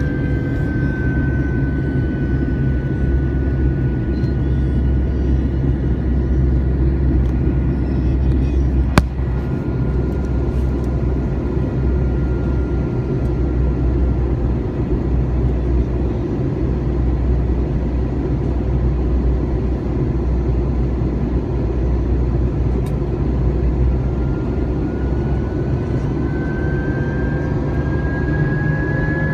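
A steady low rumbling drone with a thin high whine that slowly drops in pitch, fades out, and rises again near the end. A single sharp click about nine seconds in.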